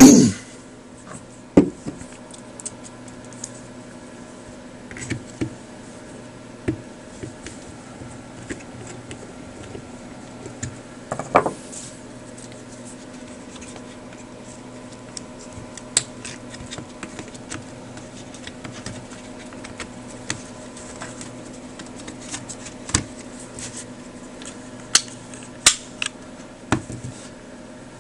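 Scattered sharp clicks, taps and light scrapes of small plastic parts being handled: a handheld multimeter's circuit board and yellow plastic case being fitted together and a 9-volt battery snap clipped on and seated. A steady low hum runs underneath.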